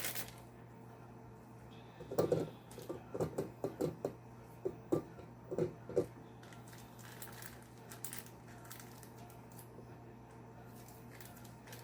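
A quick string of about a dozen soft knocks and handling sounds, spread over some four seconds, over a steady low electrical hum.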